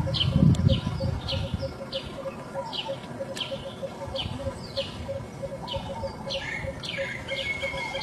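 A small animal chirping: short, high, falling chirps repeated about two or three times a second, with a low rumble in the first second.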